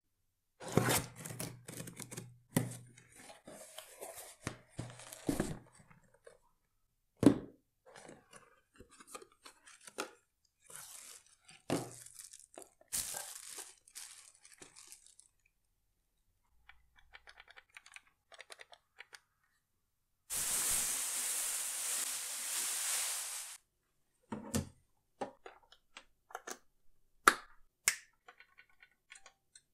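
Unboxing handling sounds: a cardboard box and plastic wrap rustle and crinkle, with sharp clicks and knocks as the Kaiser 4030 digital timer is handled. About two-thirds of the way through, a steady rasping hiss lasts about three seconds and cuts off suddenly, followed by scattered clicks.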